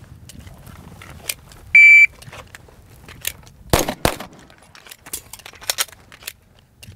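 Shot timer's start beep, then about two seconds later two pistol shots about a third of a second apart. Faint clicks follow as the emptied magazine is dropped and a fresh one is seated in an emergency reload.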